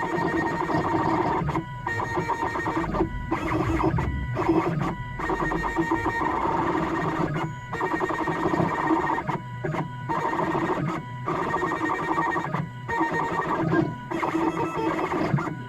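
CNC machine running, a steady whine with a dense mechanical chatter, stopping briefly and starting again several times at uneven intervals.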